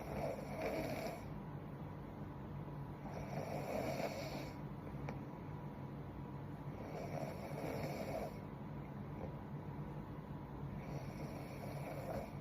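A young woman snoring in her sleep: four slow snoring breaths, about one every four seconds.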